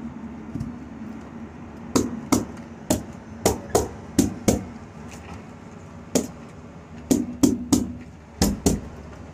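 Handheld stapler driving staples through a rainscreen drainage mat into the wall sheathing: a dozen or so sharp clacks in quick runs of two or three, with short pauses between.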